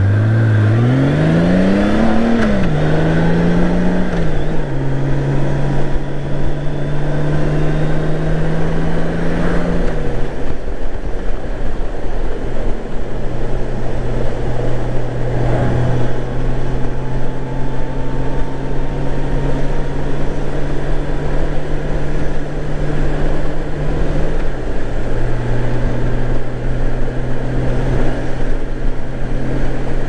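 Honda GL1800 Goldwing's flat-six engine pulling away from a stop, its pitch rising for about two seconds, then dropping with gear changes. It settles into a steady cruise with wind noise, and there is another shift near the end.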